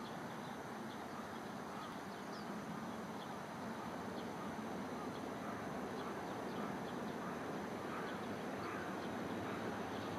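A freight train approaching in the distance: a faint low rumble that slowly grows louder, with short high chirps scattered over it.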